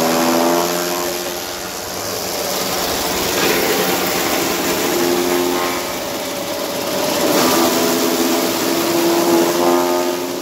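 Electric chaff cutter, driven by a belt from a three-phase motor, running and chopping super napier grass stalks fed in by hand. A steady hum sits over a dense chopping noise, and both dip and come back twice as stalks go through.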